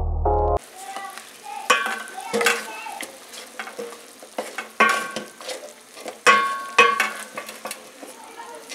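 A wooden spoon stirring chunks of beef in an aluminium pot, knocking and scraping against the metal sides, with a brief ringing after the harder knocks. A steady sizzling hiss runs underneath.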